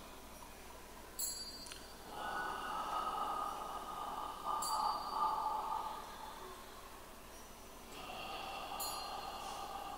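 A small chime struck three times, about every three and a half to four seconds, each strike leaving a high ringing tone. Softer held tones swell up between the strikes.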